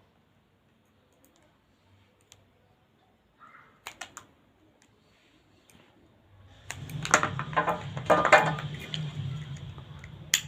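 Small hand tools trimming and handling the blender's wire ends. A few sharp snips and clicks come about four seconds in, then a dense run of clicking and rattling over the last few seconds, loudest around eight seconds, with one sharp click near the end.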